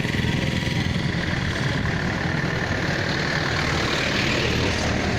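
Road traffic with vehicle engines running and idling, a steady low rumble under a constant din.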